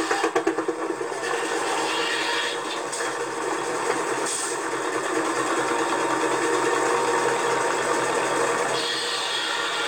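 Steady mechanical running noise from machinery, continuous and even in level.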